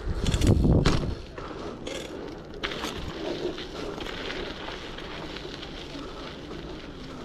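Dirt-jump bike landing: a heavy thud in the first second, with sharp rattling clicks from the bike over the next couple of seconds, then steady rolling and wind noise.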